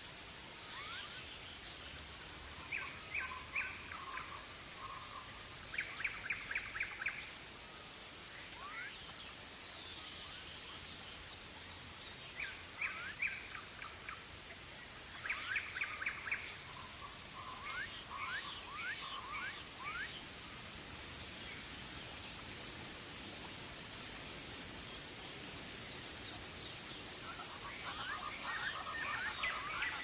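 Steady rain falling with birds calling over it: several short, rapid series of repeated notes, a run of quick rising chirps, and a busier chorus of calls near the end.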